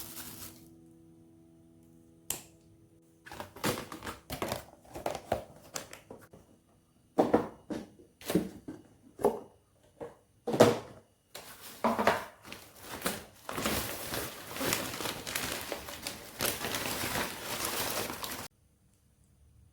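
Kitchen handling sounds: a run of knocks and crinkling, crunching noises, then a steady rushing noise for about five seconds that stops suddenly near the end.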